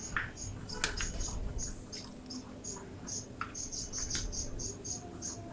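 Eggs cracked into a ceramic bowl, one after another, with a few sharp clicks of shell. Behind them, a high chirping repeats about three times a second without a break.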